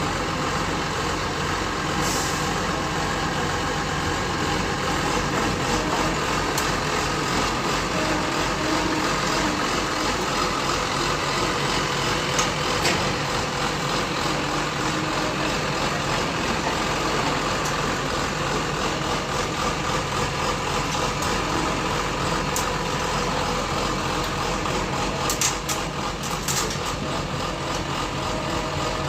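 Engine of a water-well drilling rig running steadily, with a few short clicks and knocks, several of them close together near the end.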